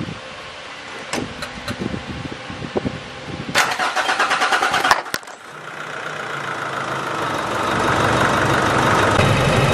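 Nissan Navara D40 common-rail diesel being started: a few sharp clicks, then the starter cranks for about a second and a half, stops abruptly, and the engine catches, its sound building over a couple of seconds into a steady idle. The engine firing up shows fuel now reaching it after the feed pump was replaced and the system bled.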